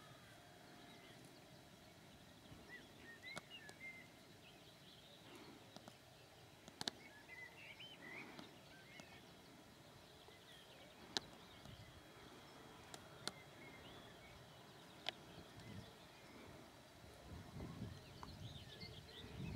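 Near silence with quiet outdoor ambience: faint birdsong chirping on and off, and a few sharp isolated clicks.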